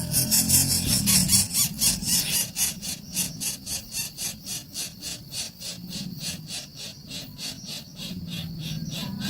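Nestling birds begging for food, a rapid run of high, harsh calls at about four or five a second. The calls start suddenly, are loudest over the first few seconds and then fade.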